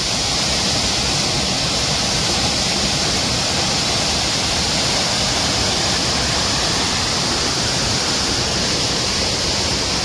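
Waterfall pouring down rock slabs: a steady, unbroken rush of falling water.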